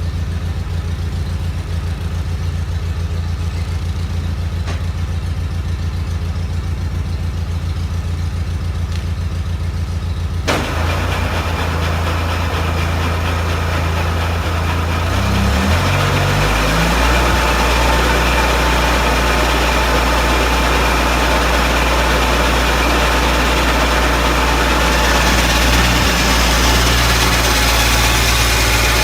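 John Deere 318 garden tractor's two-cylinder Onan engine idling with a low, even pulse. About a third of the way in a sharp click is followed by a broad whirring, likely the snowblower being engaged. Around halfway the engine speeds up and then runs steadily, with the whirring hiss growing stronger near the end.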